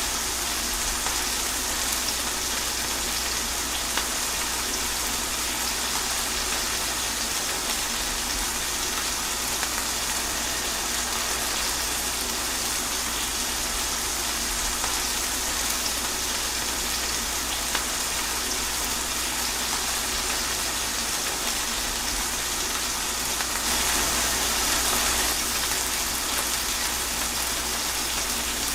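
Steady rain falling, an even hiss that swells slightly for a couple of seconds near the end.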